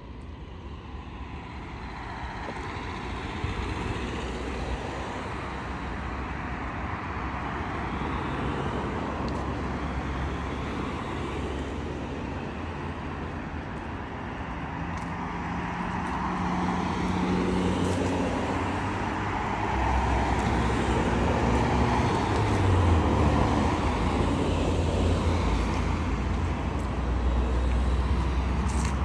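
Street traffic: cars driving past on a road, engine and tyre noise that grows louder through the second half.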